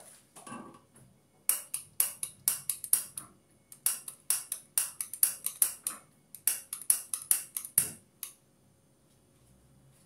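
A rapid, irregular run of sharp clicks or taps, several a second in clusters, starting about a second and a half in and stopping near the eighth second.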